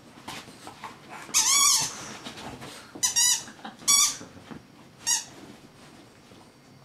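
A small pet animal giving four high-pitched whining squeaks. The first, about a second and a half in, is the longest and wavers up and down; the other three are shorter and about a second apart.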